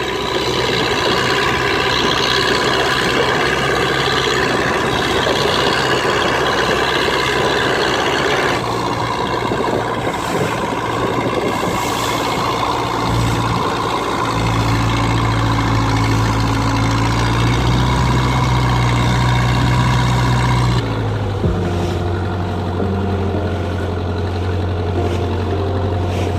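A fishing boat's engine running steadily under way. Its note shifts abruptly a few times, stepping to a different pitch about a third of the way in and again about four-fifths of the way in.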